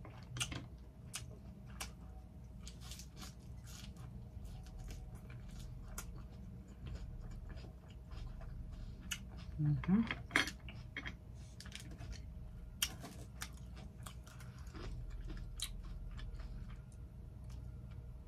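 Close-miked eating sounds: chewing a mouthful of cheeseburger, with many small wet mouth clicks and crunches. A short hum comes from the eater about ten seconds in.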